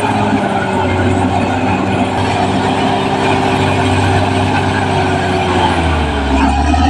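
Caterpillar D6R XL bulldozer's diesel engine running steadily under power, its pitch dipping briefly near the end and then recovering.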